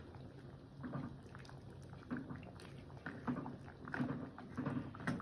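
Pot of thick coconut-milk broth simmering, bubbling with irregular soft blurps, while a ladle is moved through it.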